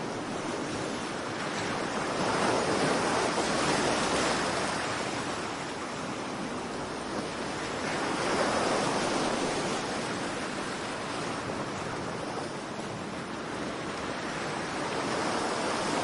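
River rapids rushing over and around boulders: a steady white-water rush that swells louder twice, about two seconds in and again about eight seconds in.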